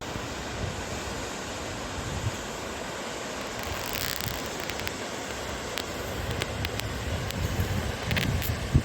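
Steady rushing wind noise on the microphone, with a few light clicks and two brief bursts of hiss.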